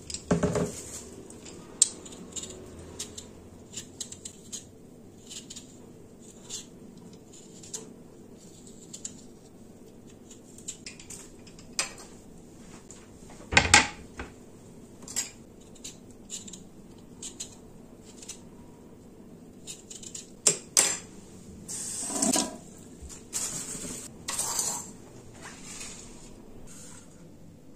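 Kitchen prep on a granite countertop: scattered light clacks and knocks as a plastic container, potatoes and a wooden cutting board are handled and set down, the loudest knock about halfway through. Near the end come scraping sounds as a paring knife peels a potato on the board.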